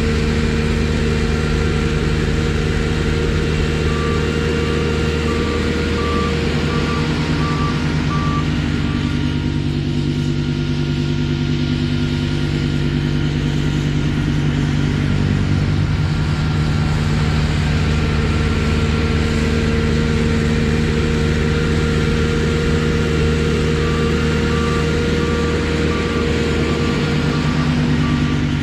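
Trackless MT6 tractor's diesel engine running steadily while it maneuvers. Its backup alarm beeps about twice a second for several seconds, twice over, while it reverses.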